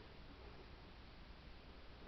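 Near silence: faint, even room tone and hiss.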